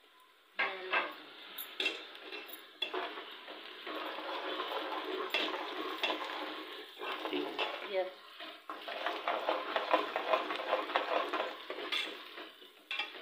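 Chopped garlic, ginger and green chillies sizzling in hot oil in an aluminium pressure-cooker pot. The sizzling starts suddenly about half a second in, and a spoon stirring scrapes and clinks against the pot throughout.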